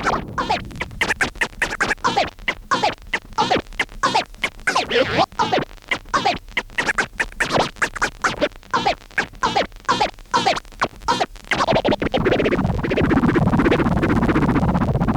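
Record scratching in a DJ mix: a rapid run of short, choppy back-and-forth cuts, then the music plays on more smoothly from about twelve seconds in.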